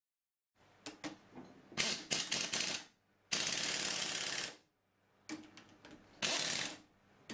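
Hand tool working on a Jaguar Mk1 steering box clamped in a vise: short bursts of rapid metallic clicking and rasping, with one longer run of over a second about three seconds in, as the box is adjusted after reassembly.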